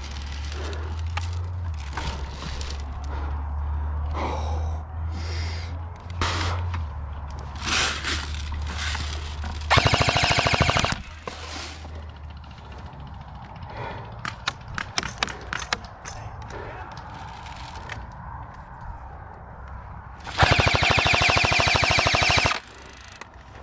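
Airsoft rifle firing two full-auto bursts, very fast evenly spaced shots, the first about a second long about ten seconds in and the second about two seconds long near the end. Fainter scattered shots are heard between the bursts.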